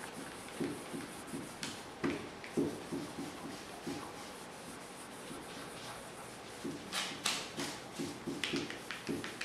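A wad of tarlatan cloth rubbed in small circles over an inked plexiglass drypoint plate, a soft scrubbing two or three strokes a second that works the ink down into the scratched lines, with a few sharper swishes near the end.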